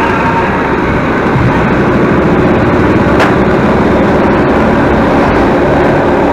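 Loud, steady engine and road noise of a moving tour bus, heard from its open doorway, with a single short click about three seconds in.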